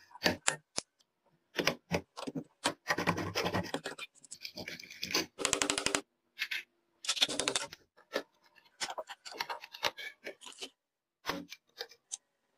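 Metal parts of an old hand drill being handled and worked by hand during disassembly: an irregular run of short scrapes, clicks and clinks with brief pauses between them.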